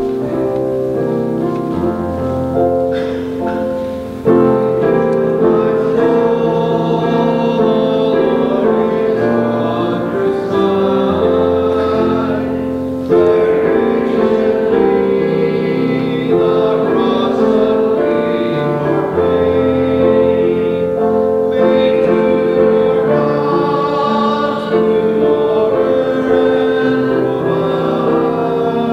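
A congregation singing a hymn, phrase after phrase, with instrumental accompaniment.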